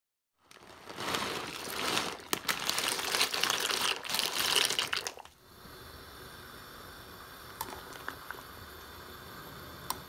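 A loud rustling, crackling noise with sharp clicks for about five seconds. It then gives way to a pot of pasta at a rolling boil, a steady bubbling hiss with a few light clicks of a silicone spatula stirring in the stainless-steel pot.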